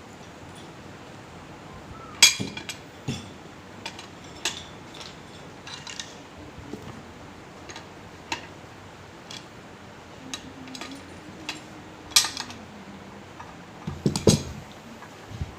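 Irregular metallic clinks and knocks of tools against the metal parts of a BMW G12 air-suspension front shock absorber during disassembly. Most are light taps, with a few sharper, ringing strikes about two seconds in, near twelve seconds and near fourteen seconds.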